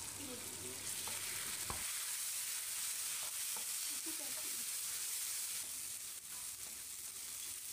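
Sliced onions and tamarind extract sizzling in a nonstick frying pan while a spatula stirs them, a steady high hiss with faint scrapes and one sharp tap about two seconds in. The tamarind is being sautéed until its raw smell cooks off.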